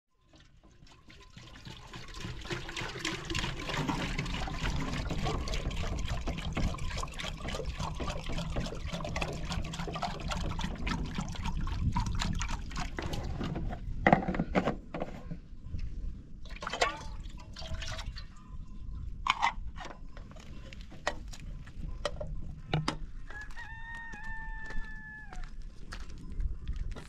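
Water pouring from a plastic jerrycan into a small metal kettle, a steady splashing fill that builds over the first couple of seconds and runs for about twelve seconds. After it come a few knocks and clicks as the cap is screwed on and the kettle is handled.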